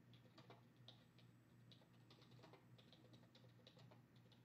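Faint computer keyboard typing: an irregular run of light key clicks over a low steady hum.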